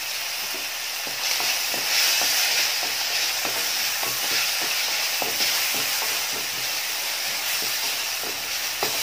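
Chopped onions frying in coconut oil in a stainless steel pan, a steady sizzle, louder from about a second in, while a wooden spatula stirs them with irregular scrapes and taps against the pan. The onions are being sautéed soft for a masala base.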